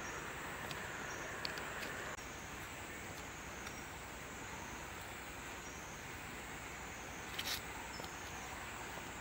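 Outdoor ambience of insects buzzing steadily, with a high whine that wavers up and down about once a second. A short burst of noise comes a little after seven seconds.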